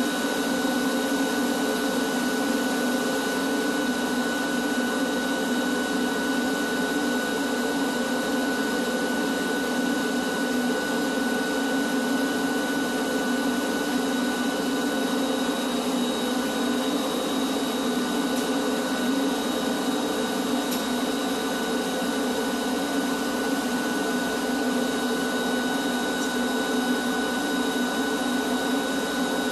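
Drum-style shop vacuum running steadily, sucking dust off the warehouse ceiling through its long hose, a constant motor rush with a steady high whine.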